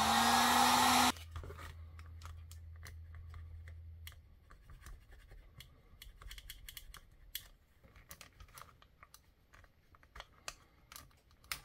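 Electric heat gun blowing, then switched off abruptly about a second in. After it, a run of faint light clicks and scrapes of a steel socket pressed and dragged over the heat-softened plastic model truck bed side, streaking it.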